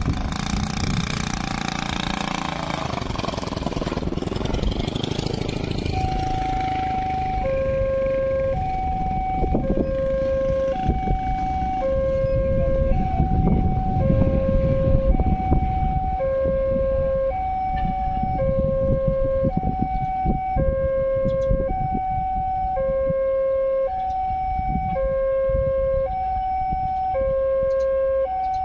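Railway level-crossing warning siren sounding two electronic tones that alternate high and low, each held for about two-thirds of a second, starting about six seconds in. Under it runs a steady low rumble of road traffic, and before it a loud rush of passing noise fades away over the first few seconds.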